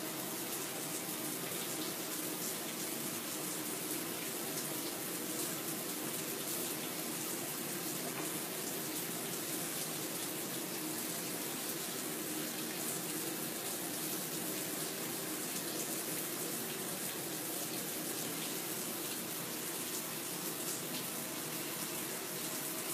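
Steady, even rushing noise with no breaks or changes, like water running or an air fan.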